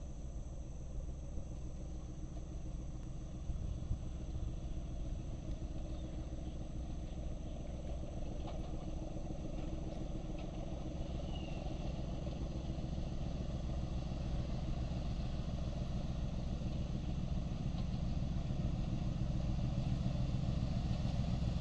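Diesel locomotive of an approaching passenger train running under power, a steady low engine rumble that grows gradually louder as it nears.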